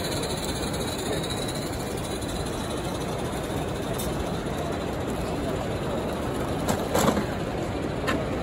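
Steady background noise of a busy exhibition hall, with voices blended in, and a few sharp clicks near the end.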